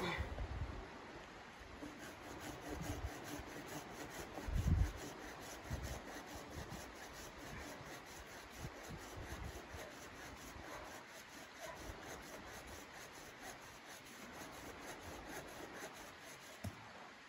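Continuous rubbing and scraping, with a few dull low thumps, the loudest a little under five seconds in.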